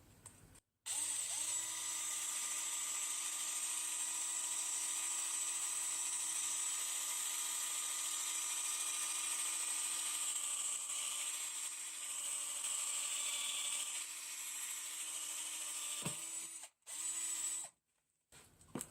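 Drill running steadily as it bores through the centre of a rivet to free a brace strap's chafe, with a steady motor whine. It stops a little before the end, then runs again for a short burst.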